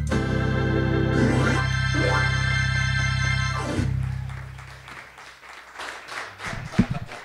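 Two-manual electronic organ ending a gospel hymn on a long held chord over a steady deep pedal bass, which cuts off about four seconds in and dies away. A few sharp claps or knocks follow near the end.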